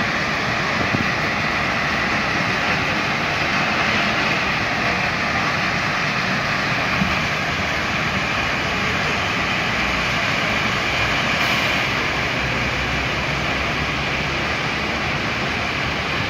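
Road-rail truck hauling ballast hopper wagons along the track, its diesel engine running steadily under a constant rushing noise.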